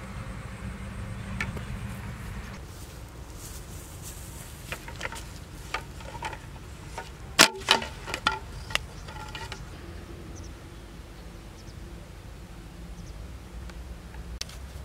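A run of sharp knocks and clicks as a bamboo fish trap and a wooden stick are handled on a muddy bank, with a cluster of the loudest about seven and a half seconds in. A low rumble underlies the first couple of seconds.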